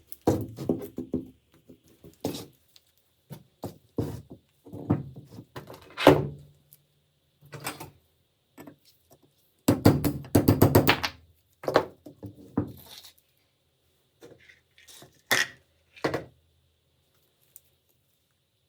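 Hand-tool work on gun parts: irregular knocks and thunks, with a rapid run of tapping strikes near the start and another about ten seconds in.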